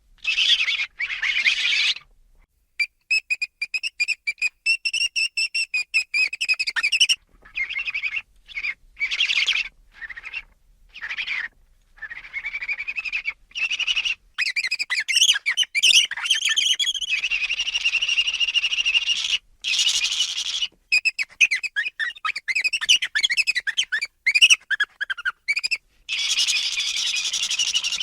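Ferret vocalizing: high-pitched squeaks and chitters, some rapidly pulsed, in runs of one to a few seconds with short gaps between.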